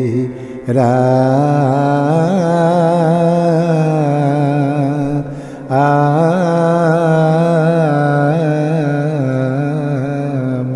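A man's solo voice singing an Assamese devotional song in raga Gauri, in long held notes that waver and bend in pitch, with two brief breaths, one just under a second in and one near the middle.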